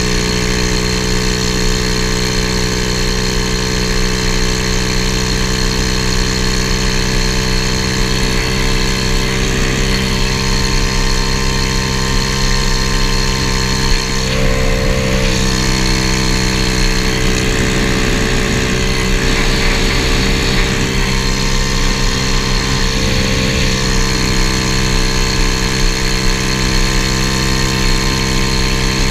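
1981 Honda ATC70 mini three-wheeler fitted with a 125cc single-cylinder four-stroke pit bike engine, running steadily at cruising speed with its pitch holding nearly constant.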